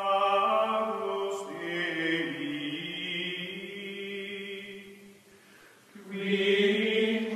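Outro music: a held choral chant, several voices sustaining a chord, with a lower voice sliding down about two seconds in. It fades down about five seconds in and swells back up near the end.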